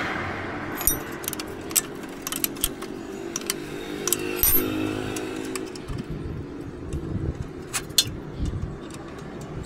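Sharp metallic clinks and knocks of hand tools working on a motorcycle during a service, over a steady engine-like hum that fades out about halfway through.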